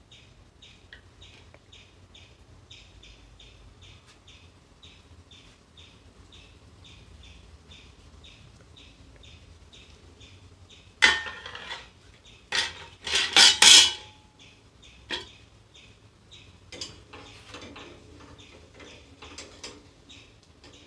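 White plastic cooking spoon knocking and scraping against a frying pan and mixing bowl: a burst of clatter about eleven seconds in, then a louder run of knocks a couple of seconds later, with lighter taps afterwards. A faint chirping repeats about three times a second underneath.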